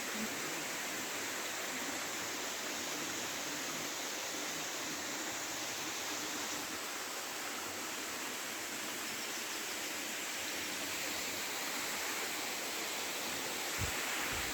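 Waterfall's water rushing in a steady, even hiss, with no change in level.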